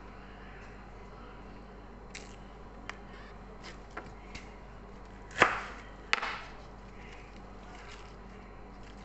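Hands sorting baby kai-lan (Chinese broccoli) on a countertop, breaking off leaves and stems: scattered light taps and handling noises, with two louder knocks and rustles about five and six seconds in.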